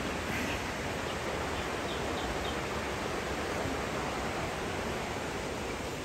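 Steady rush of flowing water, an even hiss that does not change.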